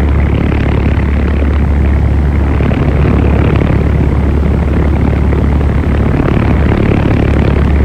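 Wind blowing: a loud, steady rushing with a deep rumble.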